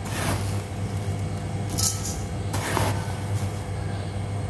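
Granulated sugar poured from a plastic container into a dry steel wok: three short sandy hisses, over a steady low hum.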